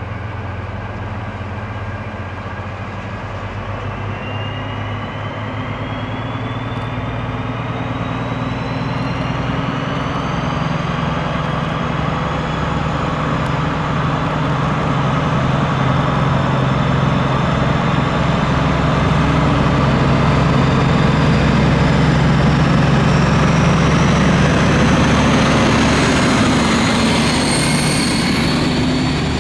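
Two DB class 218 diesel-hydraulic locomotives double-heading a passenger train, their engines running under power as the train approaches and passes. The sound grows steadily louder, with a whine that rises in pitch throughout.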